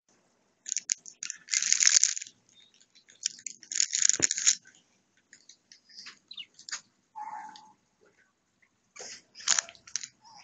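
Budgerigars chattering with harsh, scratchy calls in short irregular bursts, loudest around two and four seconds in and again near the end, with a single low knock about four seconds in.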